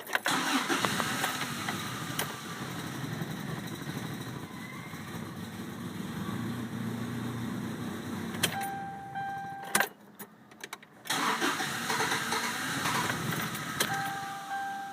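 1998 Toyota Tacoma's starter cranking the cold engine for several seconds without it catching, then a second cranking attempt after a short pause: the truck's intermittent crank-no-start fault. A steady electronic tone sounds between and after the attempts.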